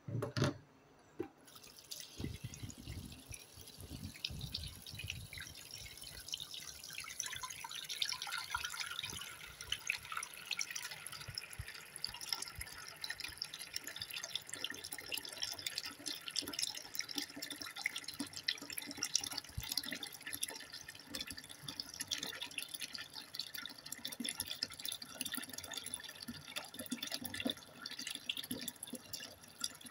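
A short thump at the start, then tap water running and splashing steadily into a filling washbasin from about a second and a half in.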